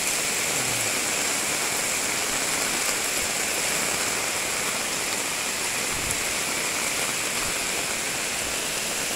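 Heavy rain falling steadily on a wet street: a dense, even hiss.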